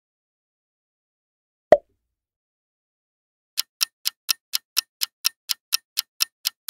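A single sharp click, then, from about halfway through, a countdown clock ticking steadily about four times a second.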